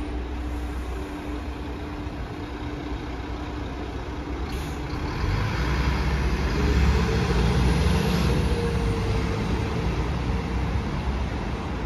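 Street traffic: an articulated city bus driving away while cars pass close by, the noise swelling to its loudest about seven seconds in. A short knock about four and a half seconds in.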